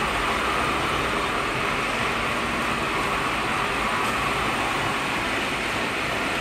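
Steady noise of running machinery on a fiber cement board production line, even and unbroken.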